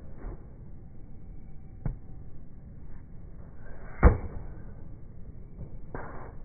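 Tennis racket striking the ball on a forehand, slowed down: one sharp, loud impact about four seconds in, with a fainter tap about two seconds in.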